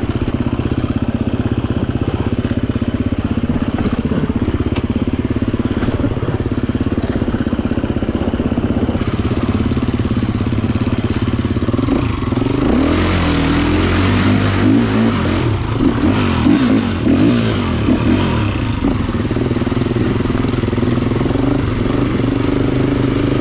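Gas Gas 350 four-stroke single-cylinder dirt bike engine running steadily under way. About halfway through, the engine note starts rising and falling and water splashing joins in as the bike rides through a shallow rocky creek.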